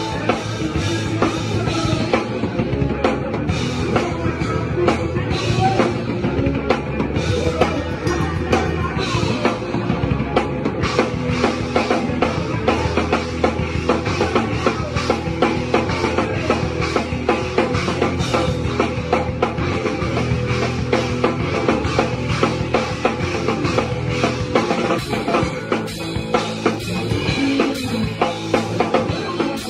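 Live rock band playing a song, heard from right at the drum kit: a steady stream of drum and cymbal hits over electric guitar.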